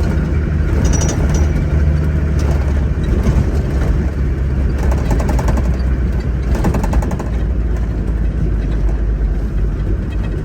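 Heavy diesel logging machinery engine running steadily under load, with short bursts of metallic rattling about halfway through.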